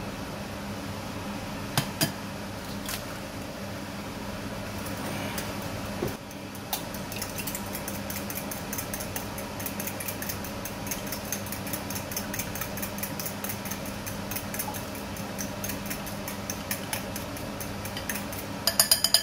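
Raw eggs being beaten by hand in a glass mixing bowl: from about six seconds in, the utensil clicks rapidly and evenly against the glass, ending in a few louder clinks. Before that come a couple of sharp knocks, and a low steady hum runs underneath.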